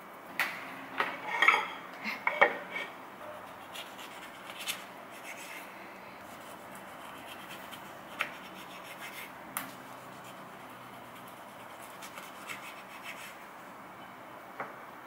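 Kitchen knife cutting through a lemon on a wooden cutting board: a cluster of knocks and scraping in the first few seconds, then a few single taps of the blade and fruit on the board.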